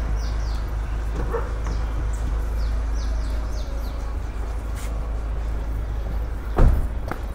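Small birds chirping in several quick series of short, high, falling notes over a steady low rumble, with a single sharp thump near the end.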